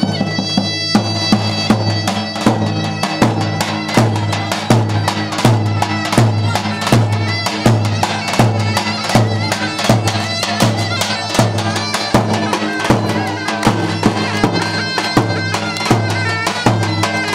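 Traditional Turkish folk dance music: a shrill reed wind instrument playing a melody over a steady, even drum beat.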